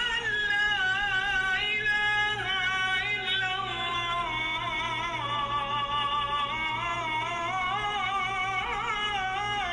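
A solo voice singing a slow, ornamented melody, holding long notes that waver and turn.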